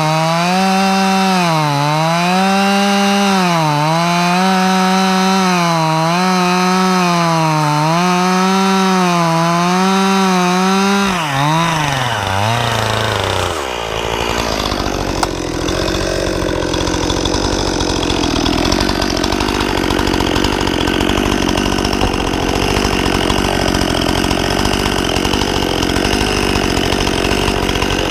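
Stihl MS 261 C-M two-stroke chainsaw at full throttle cutting into a log, its pitch dipping every two seconds or so as the chain loads in the wood. About eleven seconds in the throttle is released and the engine winds down over a couple of seconds, then it idles.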